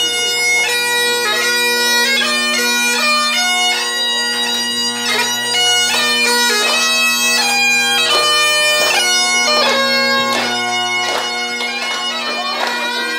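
Great Highland bagpipe playing a tune: a quick, ornamented chanter melody over steady, unbroken drones.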